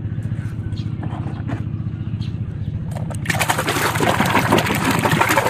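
A hand sloshing and scrubbing a plastic toy in foamy muddy water, with splashing that starts about three seconds in and is the loudest sound. Before it, light clicks of plastic toys being set down, over a steady low hum.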